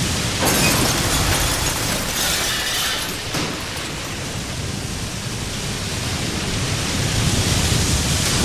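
Loud, even rushing noise of a storm, wind and water, rising suddenly about half a second in and then running on without a clear pattern.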